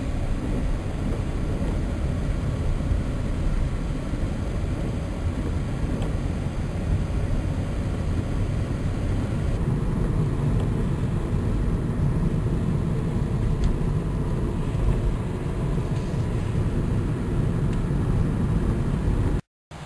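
Steady low rumble of a car being driven, heard from inside the cabin, with no break until it cuts off abruptly near the end.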